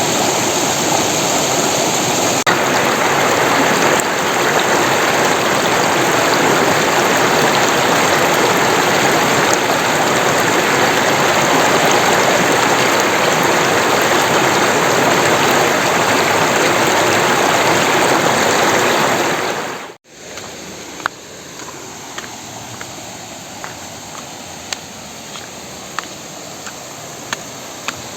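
Steady rushing of a small riverside waterfall and stream. About two-thirds of the way through it cuts off abruptly, and a quieter hiss follows with single sharp ticks about every second.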